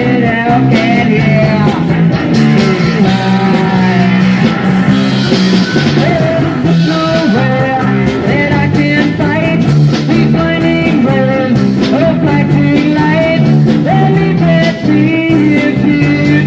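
Rock band playing loudly: electric guitar, bass guitar and drums, with a voice singing over them.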